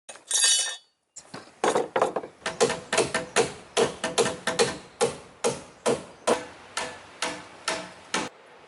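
Hammer driving nails into wood: a run of twenty-odd sharp ringing strikes, two to three a second, slowing toward the end. A short high-pitched sound comes just before them.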